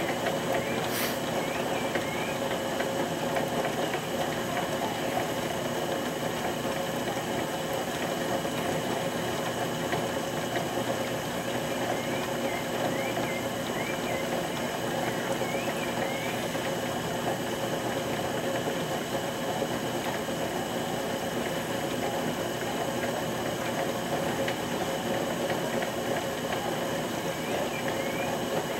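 Motorized potter's wheel running steadily, a constant hum while wet clay is thrown on it. Short high chirps come and go a few times.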